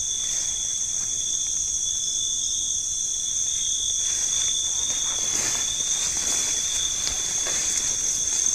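Chorus of night insects trilling steadily in two high, unbroken tones, with faint rustles in the second half.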